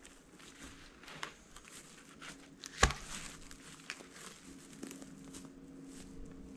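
Dry twigs and leaf litter crackling as a dead branch is handled and moved through the forest floor, with one sharp woody crack about three seconds in. A faint steady hum comes in during the second half.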